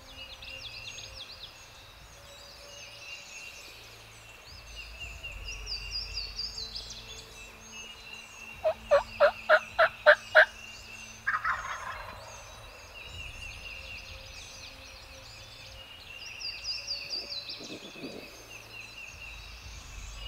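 Wild turkey calling: a series of about seven loud, evenly spaced notes a little before halfway, then a shorter rough call. Small songbirds sing throughout.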